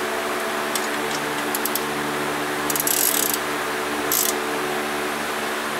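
Ratcheting wrench clicking as a bolt is turned down on the A/C delete pulley bracket: a few single clicks, then two short bursts of rapid ratcheting about three and four seconds in, over a steady background hum.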